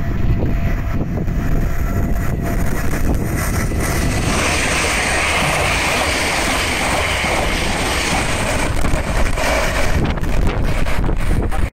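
A train passing on the main line, its steady rushing wheel-and-rail noise building about four seconds in, with heavy wind buffeting the microphone throughout.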